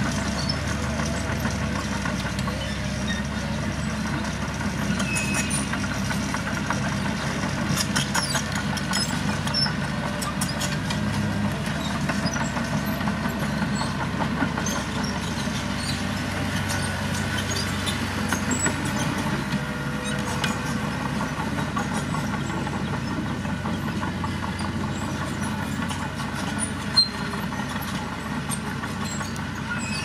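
Small Mitsubishi BD2J crawler dozer's diesel engine running steadily under load as it pushes soil, with scattered clanks and one sharp knock near the end.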